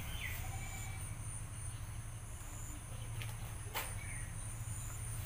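Outdoor ambience among banana plants: a steady low hum underneath, thin high insect tones that come and go, and brief bird chirps at the start and again about four seconds in. One sharp snap sounds just before four seconds, while the plant is being pulled at by hand.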